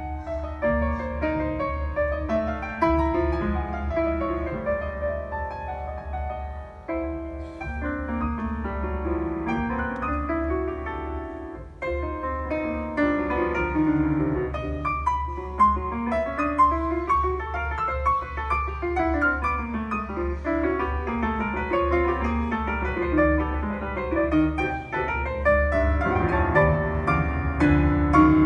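Solo grand piano playing, with fast runs of notes climbing and falling across the keyboard.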